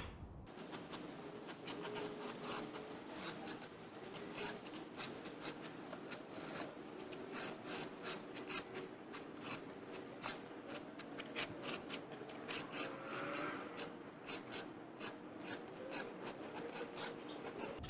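Trowel scraping over concrete as it spreads construction adhesive, in many short, irregular strokes.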